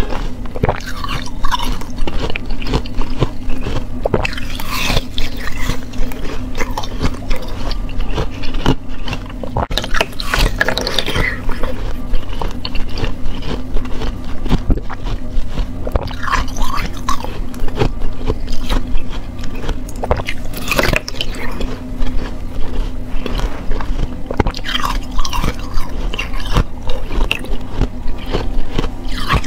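Close-up chewing and crunching of ice frozen in a water bottle: irregular crackles and crunches from the mouth, over a steady low hum.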